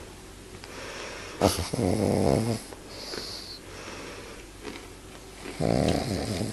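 Pug snoring: two loud snores about four seconds apart, each about a second long, with quieter breathing and a short hissing breath between them.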